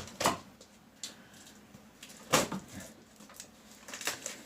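A cardboard package wrapped in heavy packing tape being worked open: several short, sharp scraping and tearing noises, the loudest a little past the middle.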